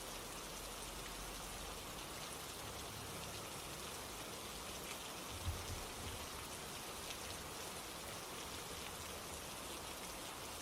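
Steady rain, an even hiss with scattered drop ticks, and one brief low thump about halfway through.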